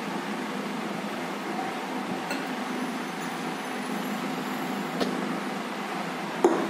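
A steady low mechanical hum, with three light clicks; the last and loudest comes near the end, as the wire whisk and the glass mixing bowl of batter are handled.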